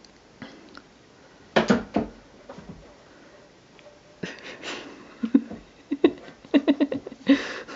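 Ragdoll cats scrambling on a carpeted wooden cat tree: scattered short knocks and scuffs of paws and claws, with a brief rustle of paper underfoot. The knocks come twice about one and a half seconds in, then in a quick cluster in the second half.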